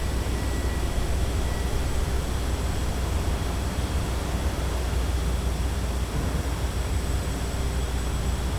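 Steady city street ambience: a continuous low traffic rumble under an even hiss of urban noise, with no distinct knocks, horns or voices.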